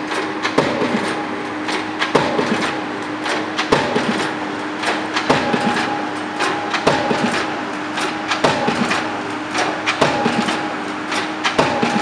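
Pile-driving rig's hammer striking a precast concrete pile, one heavy blow about every second and a half with lighter knocks between, over a steady machine hum.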